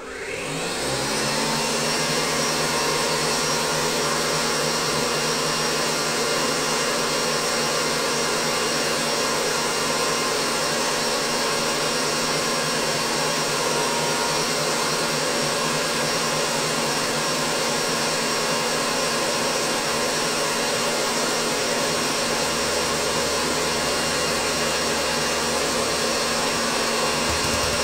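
Electric stand mixer running at high speed: the motor spins up in the first second, then holds a steady whine. It is whipping a fruit and egg-white zefir mass while hot agar syrup is poured in.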